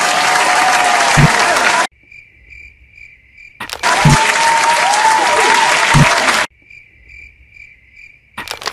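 A crowd cheering and applauding, cut off abruptly, then crickets chirping in the sudden quiet; the pattern happens twice.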